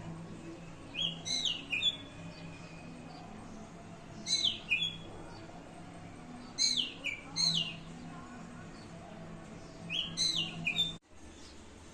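A songbird singing four short phrases of clear whistled notes that slide down in pitch, a few seconds apart, over a low steady hum. The sound cuts off suddenly near the end.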